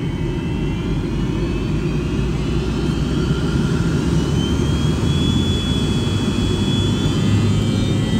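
Jet aircraft engines running, a deep steady rumble with a high whine that rises slowly in pitch.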